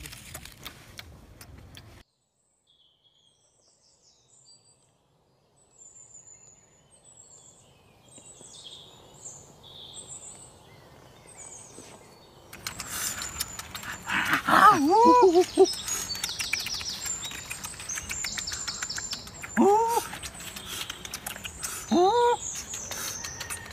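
Wild birds chirping, faint at first after a short spell of near silence, then louder about halfway through. Several short calls that rise and fall in pitch come in bunches near the middle and end.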